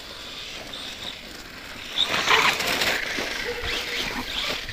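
Losi Tenacity T brushless 4WD RC truggy driving across grass and dry leaves: motor whine and tyre noise, louder from about two seconds in.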